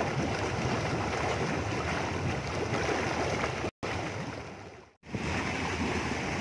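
Jets of a small jacuzzi pool churning the water: a steady rushing, bubbling wash. The sound cuts out a little under four seconds in, returns faint and fading, and comes back at full strength about five seconds in.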